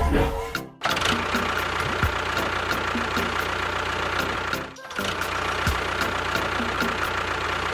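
A small engine or motor running steadily, as of a miniature tractor or bulldozer, breaking off for a moment twice.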